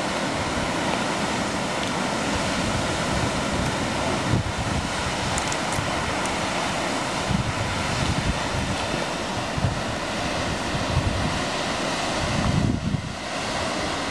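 Steady rushing roar of a tall waterfall plunging off a cliff, with wind buffeting the microphone in irregular low gusts.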